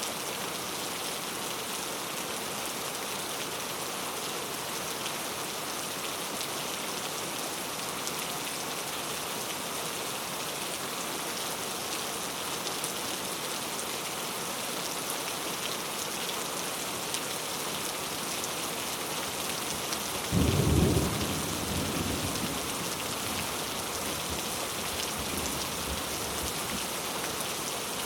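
Steady rain falling. About two-thirds of the way through, a sudden clap of thunder, the loudest sound here, rumbles away over two or three seconds.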